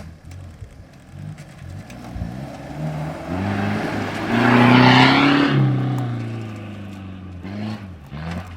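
Off-road competition 4x4's engine revving hard as it drives close by, its pitch rising in steps. It is loudest about five seconds in, then drops in pitch and fades as it pulls away.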